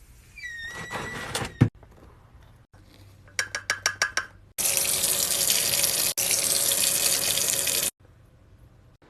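Water running hard for about three seconds in the second half, after a quick run of clicks.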